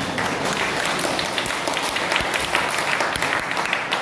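A crowd applauding: many hands clapping at once, the clapping thinning out near the end.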